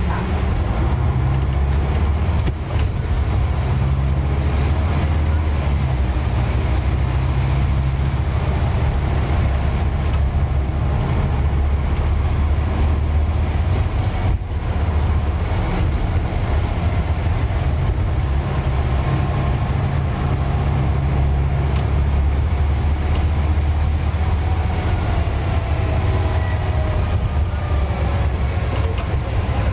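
Scania N94UD double-decker bus on the move, heard from the upper deck: its nine-litre five-cylinder diesel and drivetrain give a steady low running sound. Near the end a faint whine glides in pitch.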